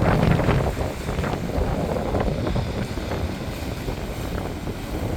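Airliner cabin noise on the landing approach: a steady low rush of airflow and engines, with uneven gusty rumbling.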